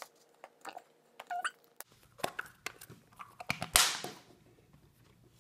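Plastic toys and surprise eggs being handled: scattered clicks and taps, with a short louder rustle about three and a half seconds in.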